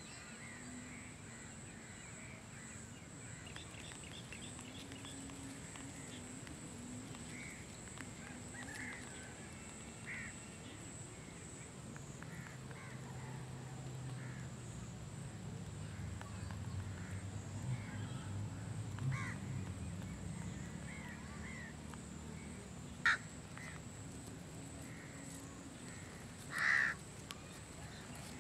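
Scattered short bird calls, with one louder call near the end and a single sharp click shortly before it.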